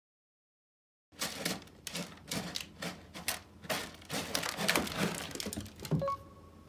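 A cat digging in a litter box of small-grain cat litter. Quick, irregular scratching and rattling of the granules starts about a second in and goes on for several seconds.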